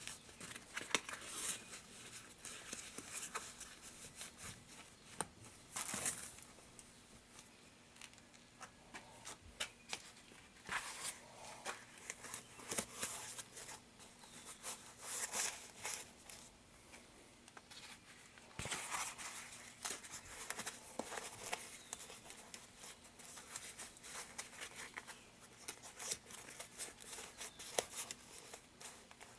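Insulation being handled and pushed back into a wall cavity: irregular rustling, crinkling and scraping.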